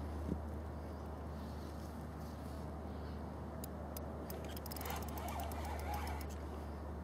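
Steady low rumble of wind on the microphone, with a run of rapid sharp clicks from about three and a half seconds in, lasting about two seconds.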